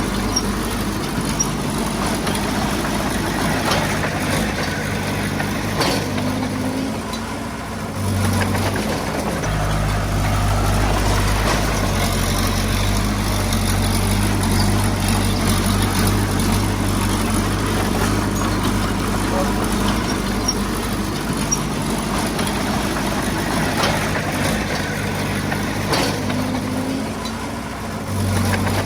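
Heavy-equipment diesel engine running steadily, its load dropping off and building again about eight seconds in, and dropping once more near the end.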